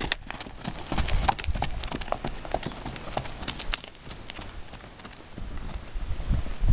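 Horse hoofbeats on packed dirt, a run of sharp irregular clops that thin out after about four seconds as the horse moves off. Low rumbles about a second in and near the end.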